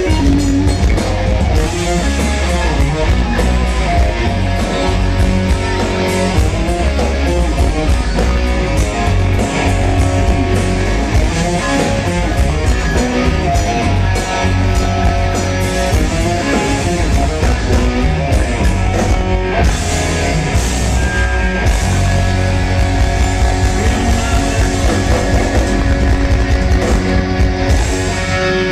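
Live rock band playing loudly and without a break: electric guitars over drums.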